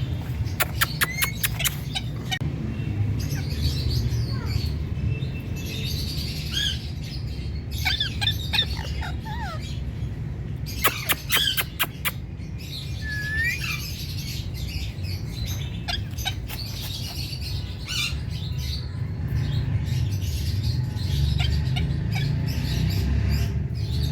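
A parrot chirping and squawking, with a few quick runs of sharp clicks and a short rising whistle about halfway through, over a steady low hum.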